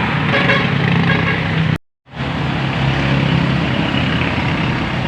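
Steady engine noise from a running vehicle with a low hum, broken by a sudden gap of silence about two seconds in.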